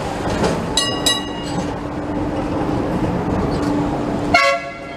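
Hong Kong double-decker tram's bell struck twice in quick succession about a second in, the familiar "ding ding", over a steady hum and street noise as the tram passes. A brief horn-like ringing tone sounds near the end.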